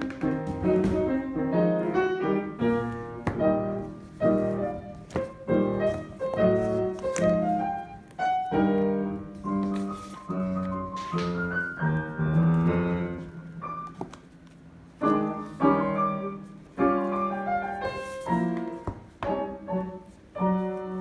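Piano playing a piece, notes and chords struck in quick succession, with a softer, quieter stretch a little past the middle.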